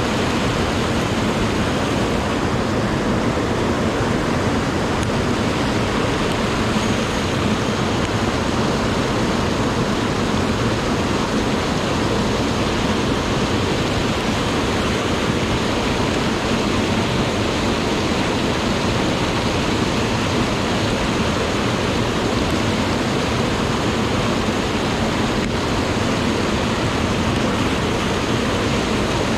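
Mountain headwater stream pouring over a small rocky cascade: steady rushing of white water.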